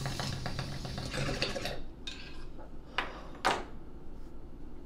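Water bubbling in a glass bong as smoke is drawn through it, stopping a little under two seconds in. Two short sharp sounds follow about a second apart.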